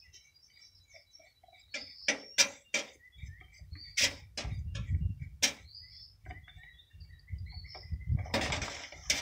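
Clicks, knocks and low rumbling handling noise as a spin-on oil filter is turned off by hand from a Generac standby generator engine, with a brief rushing noise near the end. Birds chirp faintly in the background.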